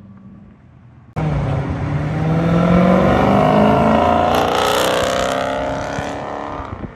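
Modern Dodge Challenger accelerating hard out of a turn, its engine note rising loudly, then easing as it pulls away. Before this, about a second in, a faint car sound cuts off abruptly.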